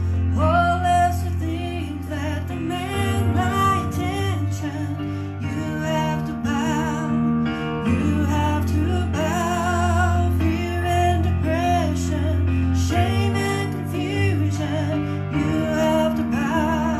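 A woman singing a slow song with vibrato, accompanying herself on an electronic keyboard played through a PA.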